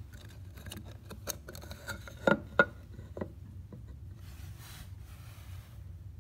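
Ceramic tile being hung on a small metal picture hook against a wooden panel: a run of light clicks and scrapes, with two sharper knocks about two and a half seconds in, then a brief soft rustle.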